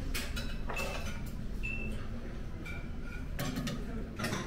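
Light clicks and short ringing clinks of tableware and serving tongs at a buffet, over a steady low room hum.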